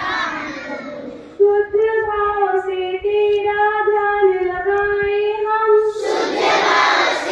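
Schoolchildren singing a Hindi prayer together: the massed voices die away about a second in, a single voice sings a slow, held line alone for about four and a half seconds, and the whole assembly comes back in near the end.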